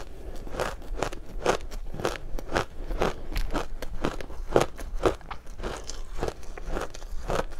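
Close-miked crunching and chewing of mouthfuls of powdery ice dusted with matcha powder, a sharp crunch about every third of a second.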